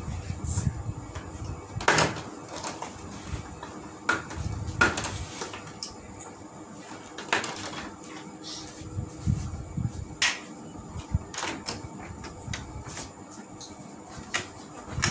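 Irregular clicks, knocks and rustles of TV panel parts being handled during disassembly, with about seven sharper knocks spread through and soft low thumps between.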